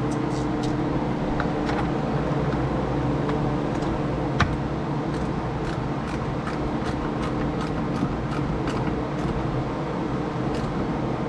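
A steady machine hum runs under scattered small clicks and taps of parts being handled during the radio install in the loader's cab, with one sharper click about four and a half seconds in.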